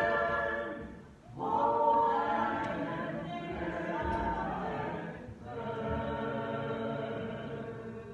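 A choir of voices singing long held chords in three phrases, breaking off briefly about a second in and again about five seconds in, then fading near the end.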